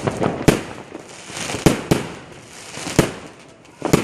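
Fireworks going off: about five sharp bangs at irregular spacing, with crackling between them.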